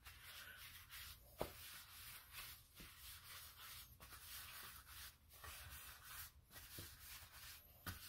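Faint rubbing of an oiled paper towel around the cups of a metal muffin tin, with a few light ticks of the tin, close to near silence.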